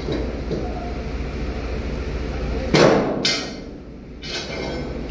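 Two sharp metallic strikes about half a second apart, the first the loudest and ringing on in the steel shipping container, typical of a hammer or bar knocking loose a wooden chock nailed to the container floor. A steady low rumble runs underneath.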